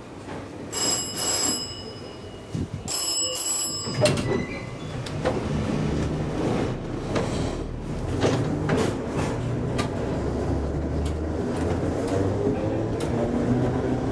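The bell of a 1904 ASEA-built SS A1 tram rings as two double strokes in the first few seconds. From about four seconds in, the tram runs on: a steady low electric motor hum with wheels clicking over the rails.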